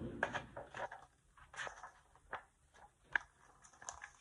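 Pages of a book rustling as it is handled and opened, a string of short papery rustles and soft taps with one sharper tap about three seconds in.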